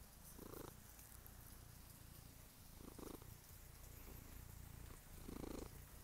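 A domestic tabby cat purring softly, picked up close by an earphone microphone held to its head. Three brief soft noises come over the purr.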